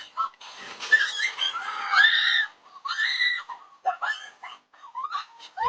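High-pitched wordless shrieks and squeals from frightened people, several short cries with gaps between them.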